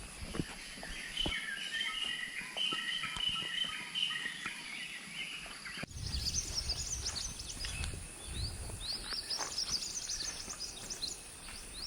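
Forest birds singing: for the first half, a run of short repeated song notes, then, after an abrupt change about halfway, many quick high, thin chirps over a low rumble.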